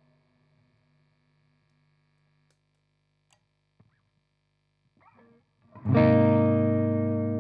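Distorted electric guitar, a mid-90s Korean-made Hamer Slammer series: the last ringing note fades out, a few faint clicks follow, and about six seconds in a loud distorted chord is struck and left ringing, slowly fading.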